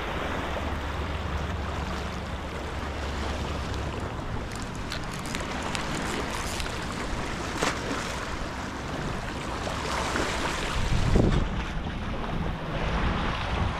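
Wind buffeting an action camera's microphone over lapping seawater, a steady low rush with a few faint clicks and a louder gust about eleven seconds in.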